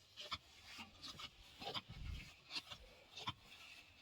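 Faint, irregular scraping and clicking, a handful of short rubs and ticks with a dull thud about halfway through.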